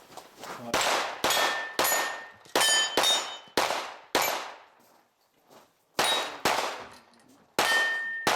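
Rapid pistol shots on steel targets, about a dozen sharp reports each followed by the ring of struck steel plates, with a short pause about two-thirds of the way through.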